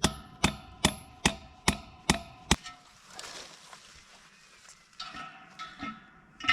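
Hammer striking a metal bolt: seven quick, ringing blows about two and a half a second, then a pause and a few softer knocks near the end.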